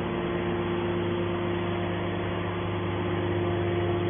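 Hydraulic scrap metal baler's motor and pump running with a steady hum.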